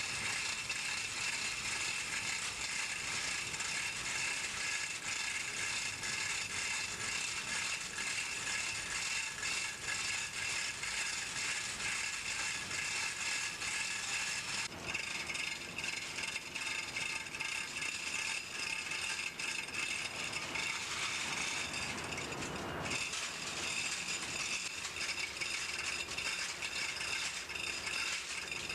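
Engine-room machinery running: a steady, dense mechanical rattle with a high steady whine, changing briefly about fifteen and twenty-three seconds in.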